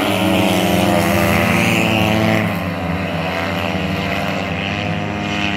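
Several 125cc and 150cc youth speedway motorcycles racing round the track at high revs, their engines blending into one loud buzz whose pitch wavers as the riders work the throttle. The sound eases slightly about halfway through.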